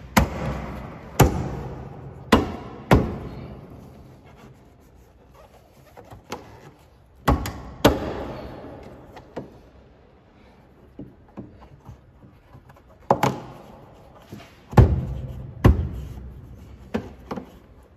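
Palm knocks seating a Volkswagen Polo's rubber boot-opening weatherstrip back onto its metal flange: a dozen or so sharp thumps in irregular groups, each with an echoing tail.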